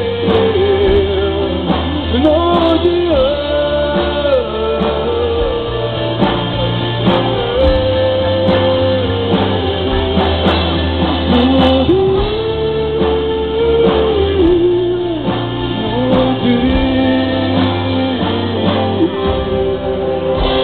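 Pop-rock band playing live, with a lead voice singing a melody over guitars and a steady bass. The sound is dull, with no treble.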